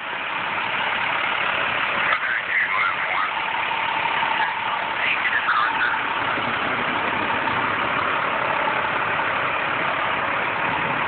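Steady rushing noise of floodwater running across a paved street, mixed with a truck's diesel engine idling close by. Faint voices come through briefly about two and five seconds in.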